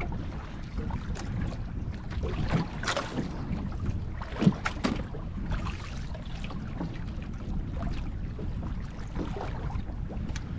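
Wind buffeting the microphone and choppy sea water washing against a small fishing boat, with a few sharp splashes or knocks, the loudest about four and a half seconds in.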